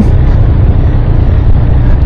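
BMW R 1250 RS's boxer-twin engine running steadily at low speed as the motorcycle is ridden slowly, a constant low engine sound with road noise.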